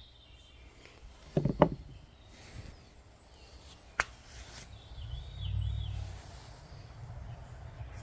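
Outdoor background with birds chirping, a quick pair of loud knocks about one and a half seconds in and a single sharp click around four seconds. A low rumble builds from about five seconds in.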